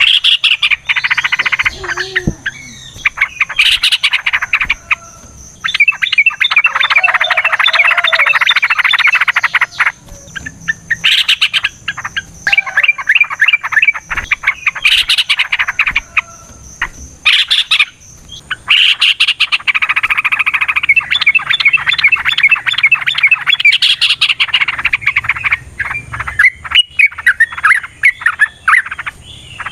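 Yellow-vented bulbul (trucukan) singing long, fast chattering bouts of several seconds each, one after another with short breaks, over a steady faint high tone.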